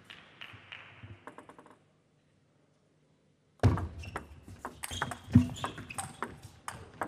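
Table tennis rally: a plastic ball clicking off rubber bats and the table in quick succession, starting about halfway through after a silent gap, with one louder sharp knock in the middle of the rally.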